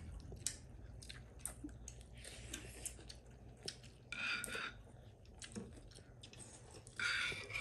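Close mouth sounds of chewing rice and potato-cauliflower curry eaten by hand, with many faint clicks and small smacks. Two louder noisy bursts come about four seconds in and near the end.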